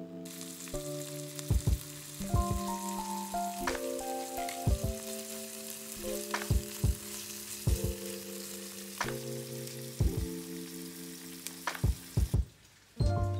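Ham strips and sliced green pepper sizzling in oil in a small rectangular omelette pan, with sharp clicks of chopsticks against the pan as they are stirred. The sizzle cuts off near the end.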